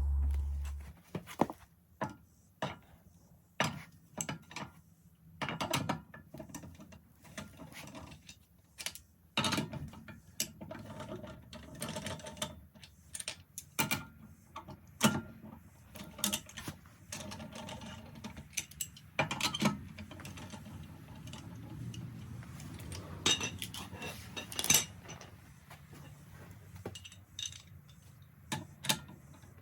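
Hand tools working on metal: irregular clicks, clanks and knocks.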